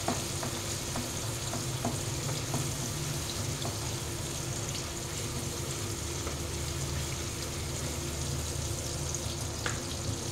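Chopped tomatoes frying in hot oil in a pan over a high flame: a steady sizzle with a few faint clicks.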